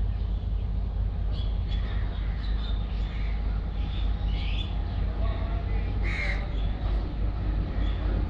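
Crows cawing several times, with one loud call about six seconds in, over the steady low rumble of a Class M6 diesel locomotive running as it approaches slowly.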